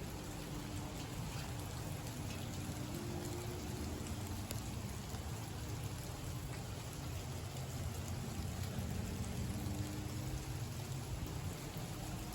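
Heavy rain falling steadily, with a faint low hum underneath.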